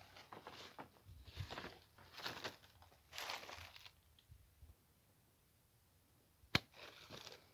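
Hand pruning shears snipping through a quince branch: one sharp snap about six and a half seconds in, the loudest sound. Before and after it, soft rustling of twigs and leaves being handled.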